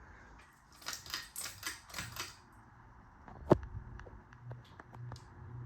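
A quick run of rattling clicks, then one sharp click about three and a half seconds in, from the pull-chain speed switch of a Honeywell AC-552 ceiling fan being set to high. A few lighter ticks follow, and a low pulsing motor hum starts as the fan begins to speed up.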